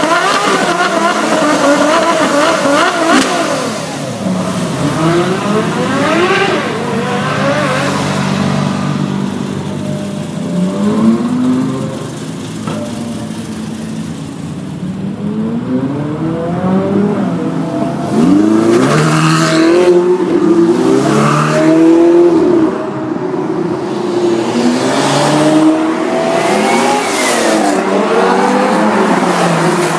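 A procession of Ferrari sports cars driving past one after another, their engines revving up and falling back again and again through gear changes and blips of the throttle, loudest about two-thirds of the way through.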